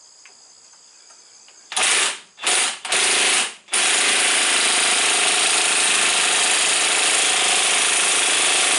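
A high-torque cordless impact wrench hammering on a stuck muzzleloader breech plug, set on its lowest setting. After about two seconds it gives three short bursts, then hammers continuously for the rest, and the plug does not break loose.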